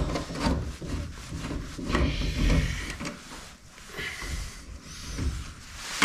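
Hand screwdriver with a Torx (star) bit working a tail-light retaining screw on a pickup's bed pillar, with irregular scraping and rubbing of metal on plastic and handling knocks.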